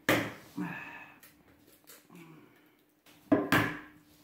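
Eggs being knocked against the rim of a plastic mixing bowl to crack them: two sharp knocks, one at the start and one about three seconds later, with a few faint handling sounds between.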